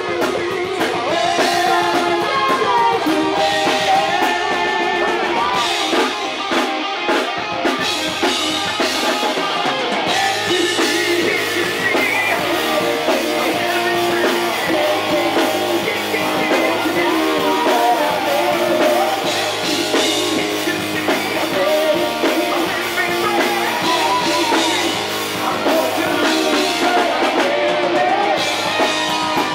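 Heavy metal band playing live: a male lead singer over distorted electric guitars, bass and drums, with a second singer joining on backing vocals.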